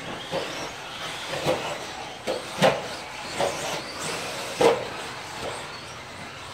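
RC stadium trucks running on a dirt track: a steady hiss of motors and tyres, broken by several sharp knocks as the trucks land jumps and bounce over the track.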